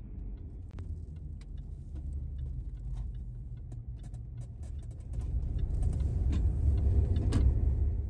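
Low road and engine rumble heard from inside a moving vehicle's cabin, with scattered light clicks and rattles. The rumble grows louder about five seconds in.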